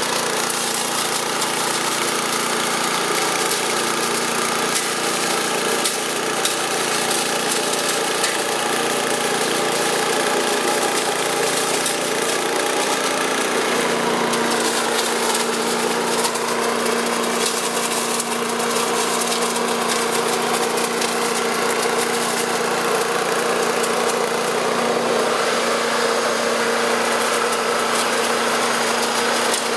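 The four-stroke petrol engine of an HCT VBS8574 leaf vacuum-shredder running steadily, with a slight change in pitch about halfway through.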